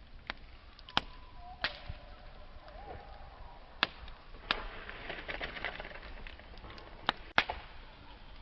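Wood campfire crackling: sharp snaps of burning wood half a dozen times, the loudest near the end, with a quick run of small crackles in the middle.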